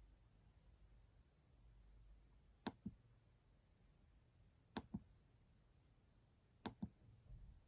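Three quick double clicks of a computer's pointer button, about two seconds apart, over near silence.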